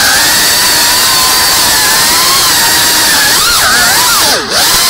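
Cinewhoop FPV drone's brushless motors and ducted propellers whining loudly, heard from its onboard camera, the pitch wavering up and down as the throttle changes. Near the end the pitch drops sharply and the sound dips for a moment, then climbs straight back up.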